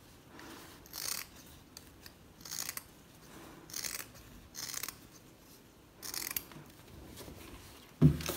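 Fabric scissors cutting through folded, pinned cotton fabric, about five separate snips spaced a second or so apart. A soft thump comes near the end.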